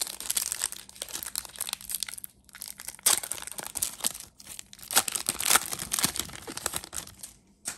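Foil wrapper of a Pokémon trading card booster pack crinkling and tearing as it is ripped open and the cards are slid out, in irregular crackles with a short lull a little over two seconds in.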